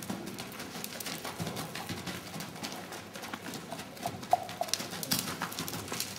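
Hoofbeats of a pony trotting and cantering on soft indoor-arena footing: a steady, rhythmic run of dull thuds.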